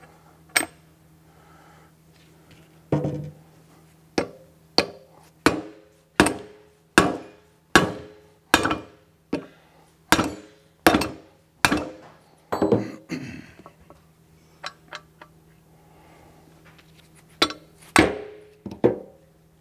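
Mallet blows on the Tilmor 520 tractor's metal final-drive drop box, driving the gear and bearing assembly out of the case. A steady run of sharp knocks, about one every three-quarters of a second, each ringing briefly through the housing. After a pause near the end come three more blows.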